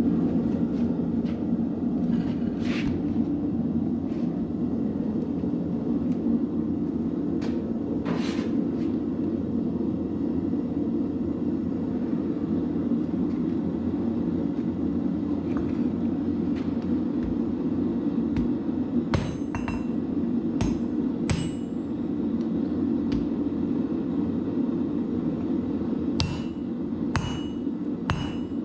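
Hammer blows on hot 5160 leaf-spring steel being forged into a blade. A few single ringing strikes come in the first part, then quicker runs of strikes, about two a second near the end, over a steady low rushing noise.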